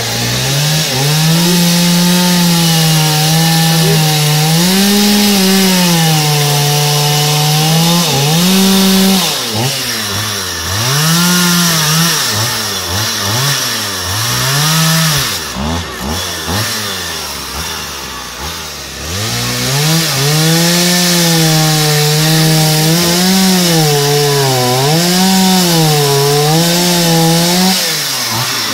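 Two-stroke Stihl chainsaw cutting into a wood log during carving, its engine revving up and down with the throttle. Partway through, the revs drop lower and waver for several seconds before climbing back to full speed.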